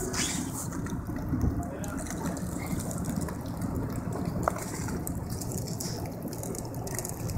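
Scallop boat's engine running steadily as the hull breaks through sheet ice, with ice crunching and scraping along the hull and water rushing past.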